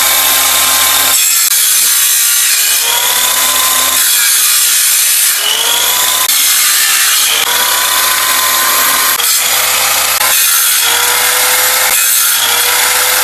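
A small electric saw with a circular blade, fixed to a board as a homemade table saw, is cutting through wood boards. Its motor whine sags each time the blade bites and climbs back as it frees, about half a dozen times in a row.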